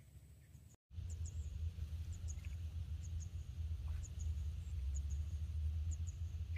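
Outdoor ambience: a steady low rumble with a faint, high double chirp repeating about once a second, after a brief dropout about a second in.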